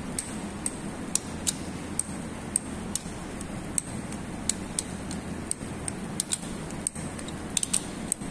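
Torque wrench clicking as the camshaft bearing cap bolts on a cylinder head are torqued down: sharp, high-pitched ticks every half second or so, bunched more closely near the end, over a steady low hum.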